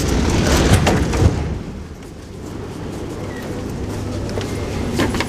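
Doors of an 81-717.5 metro car opening at a station stop: a clatter of sharp knocks in the first second and a half. Then a quieter, steady low hum from the standing train as passengers step out.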